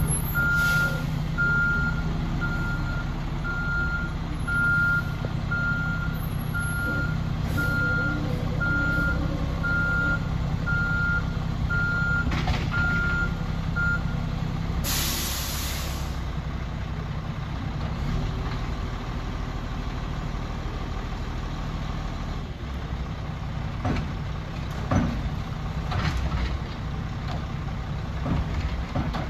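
Mack LE side-loader garbage truck's diesel engine running, with its reversing alarm beeping about once a second through the first half. A loud hiss of air brakes comes about halfway through. Near the end come a few clunks as the automated side arm lifts and tips a cart into the hopper.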